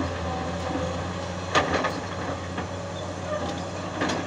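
Tata Hitachi 200 Super Plus excavator's diesel engine running steadily while the machine digs, with a quick cluster of sharp clanks about one and a half seconds in and another clank near the end.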